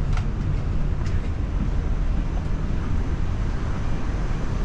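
Steady low rumble of an Airbus A350 cabin parked after the flight, with two faint clicks, one near the start and one about a second in.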